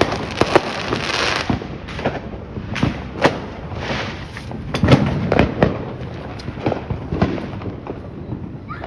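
Fireworks going off in quick succession: many sharp bangs, some overlapping with stretches of dense crackling, the loudest bang about five seconds in.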